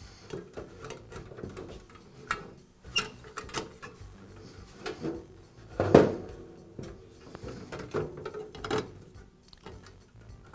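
Plastic fan grille and metal reflector being handled and fitted onto a bathroom vent-fan housing: irregular clicks, knocks and light scraping, with the loudest knock about six seconds in.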